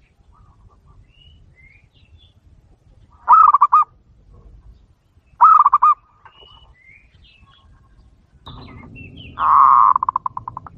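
Zebra dove (perkutut) cooing: three rapid pulsed coos, two short ones and a longer one near the end whose pulses trail off. A low rustle sits under the last coo, and faint high chirps come between the calls.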